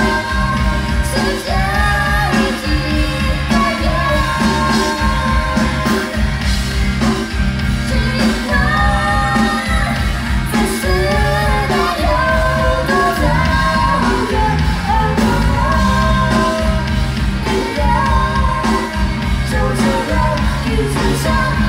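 Live rock band playing a song with sung lead vocals over electric guitars, bass and drums.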